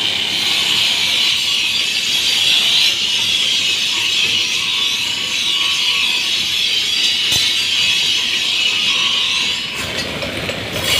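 Steel sword blade pressed against a motor-driven grinding wheel to sharpen its edge: a steady, harsh grinding hiss that eases off near the end.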